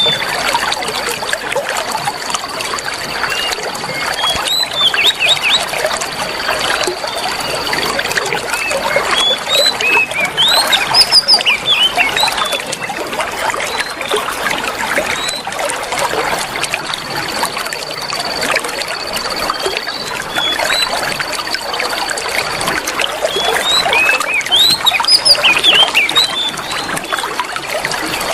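Water trickling and babbling steadily, with many quick bird chirps over it and a high, steady whistling tone that comes and goes in stretches of a second or two.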